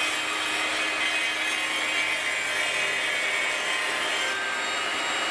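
A workshop machine motor running steadily: an even whirring hiss with a faint steady hum, holding at the same level throughout.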